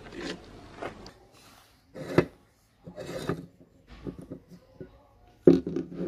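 Irregular knocks and scraping of a meat grinder's metal parts being handled and taken apart on a wooden table. There is a sharp knock about two seconds in, and the loudest knocks come near the end.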